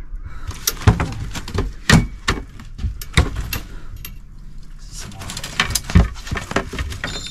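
Irregular knocks, clicks and rattles of a landing net and a freshly caught striped bass being handled on a boat deck.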